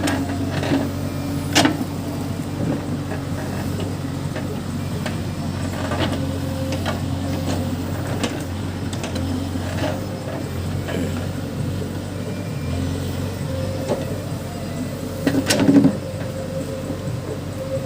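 Case backhoe loader's diesel engine running steadily at work, with a few sharp knocks, the loudest near the end.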